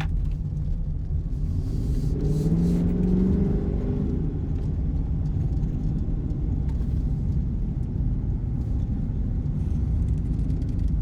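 Dodge Charger R/T's 5.7-litre Hemi V8, fitted with an AFE cold air intake, running under way with a steady low rumble, definitely louder with the new intake. About two seconds in it accelerates for a couple of seconds, the engine note rising, then settles back.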